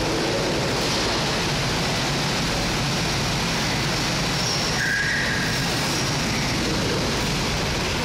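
Go-kart engines running, a steady, even din that fills a large indoor hall.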